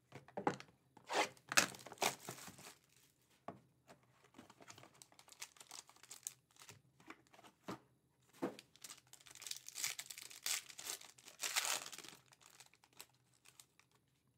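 Foil trading-card pack wrapper crinkling and being torn open by hand, in irregular bursts, loudest about ten to twelve seconds in, with a few light clicks of cards and boxes between.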